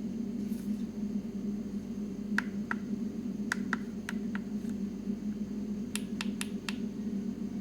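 Buttons on a TC5540 CNC control panel being pressed, about ten sharp clicks in two short runs, over the steady hum of the running machine.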